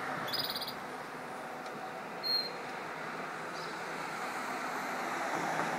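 Steady droning noise from the sky, oscillating like jet aircraft, of unknown origin, persisting for a long time. Brief high chirps sound about half a second in and again after two seconds.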